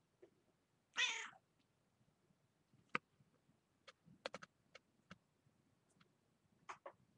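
Domestic cat giving one short meow about a second in, followed by scattered light clicks and taps.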